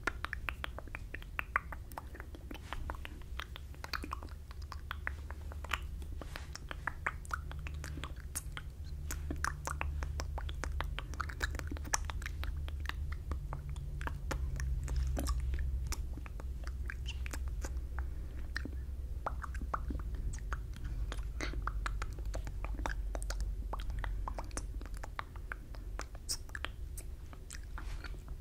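Wet mouth sounds right at the microphone from silently mouthing words: a steady stream of quick, irregular lip smacks and tongue clicks, the ASMR 'fishbowl effect'. A low rumble runs underneath, strongest about halfway through.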